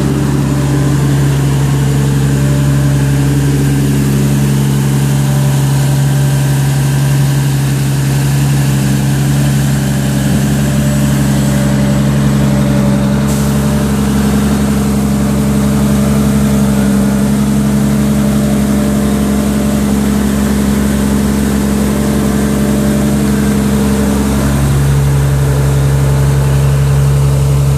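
Grimme Maxtron 620 self-propelled sugar beet harvester running while harvesting: a steady, loud engine drone with machinery hum. Its tone changes about three seconds before the end.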